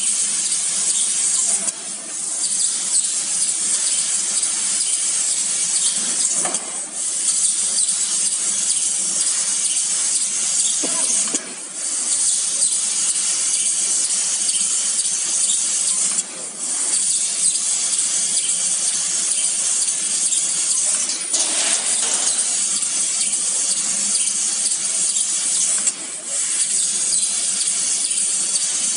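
Fiber laser metal-cutting machine cutting sheet metal: a steady high hiss from the cutting head, breaking off briefly about every five seconds between cuts.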